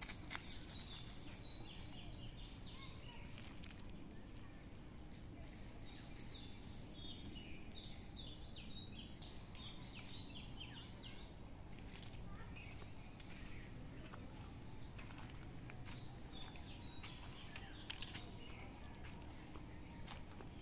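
Small birds chirping in quick runs of short high chirps, faint over a steady background hum, with a couple of sharp clicks.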